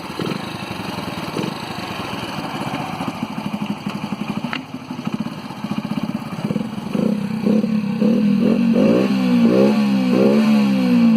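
Motorcycle engine running through an aftermarket silencer, idling with a rapid exhaust pulse. From a little past halfway it is revved again and again, the pitch rising and falling with each throttle blip and the sound growing louder.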